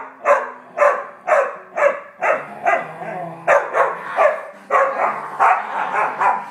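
Small dog barking over and over, about two barks a second, in an excited play attack.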